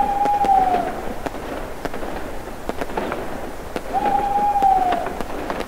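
Fireworks crackling with many scattered sharp pops. Twice, about four seconds apart, a whistle holds steady for about a second and then dips at its end.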